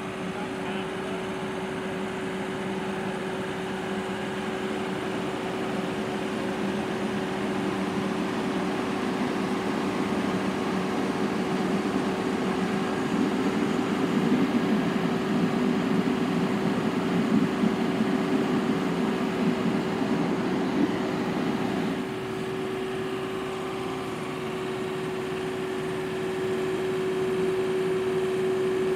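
Cab interior of a Fendt Rogator 932 self-propelled sprayer driving through a cornfield: a steady machine drone with a constant hum. It grows louder for a stretch in the middle and drops back about three-quarters of the way through.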